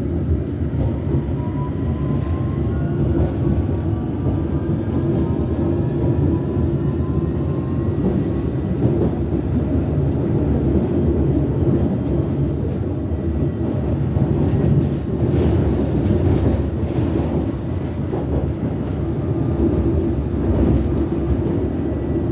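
District Line S7 stock underground train running, a steady heavy rumble, with a faint electric whine rising in pitch over the first few seconds as the traction motors pick up speed. Scattered sharp clicks from the wheels and track come through in the middle.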